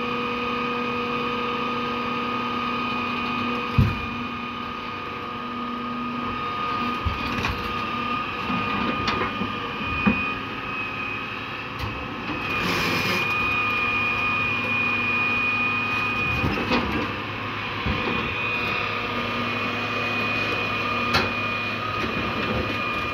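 Hitachi EX200 excavator's diesel engine running steadily, with a steady high whine over it and a few sharp knocks spread through.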